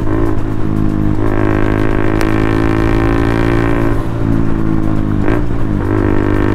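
KTM Duke motorcycle's single-cylinder engine running steadily under way, heard from the rider's seat. Its pitch dips briefly twice, near the start and again about five seconds in.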